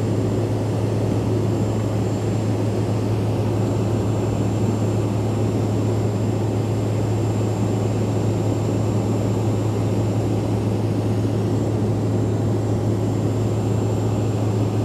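Cabin noise of a Bombardier CRJ regional jet climbing after takeoff: its rear-mounted turbofans and the airflow make a steady, even roar with a strong low hum and a faint high whine.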